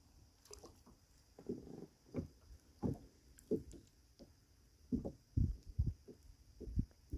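A series of short, dull, low knocks and thumps at an uneven pace, roughly one or two a second.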